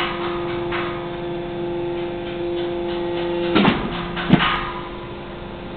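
Tube-shrinking machine for metal tube ends running with a steady hum, one strong tone over a few fainter ones. A little past halfway come two loud knocks less than a second apart, after which the hum runs on a little quieter.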